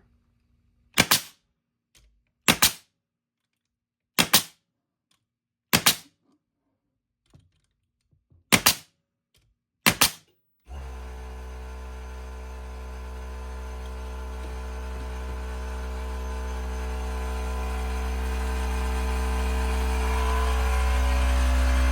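A Bostitch pneumatic angled finish nailer fires six times, a sharp crack every one to three seconds, driving 2½-inch finish nails into wood. About eleven seconds in, the Bauer 1.6-gallon cordless air compressor kicks on and runs steadily, slowly getting louder as it refills its tank.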